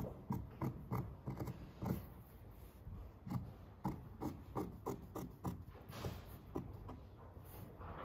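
Sewing scissors cutting fabric: a steady run of short snips, two or three a second, with some rustling of the cloth.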